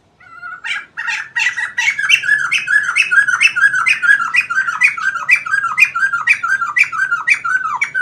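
White-crested laughingthrush giving a loud run of repeated squawking calls, about two to three a second, each note dropping in pitch. It starts about half a second in.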